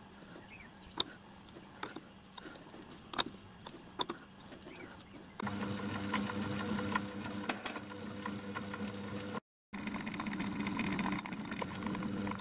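A few sharp metallic clicks and taps as the work is adjusted in a lathe's four-jaw chuck. About five seconds in, the Myford lathe starts and runs with a steady motor hum, spinning the brass part against a dial test indicator to check that it runs true.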